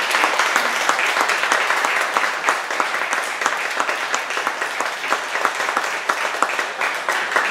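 Audience applauding: many hands clapping together, loud and steady.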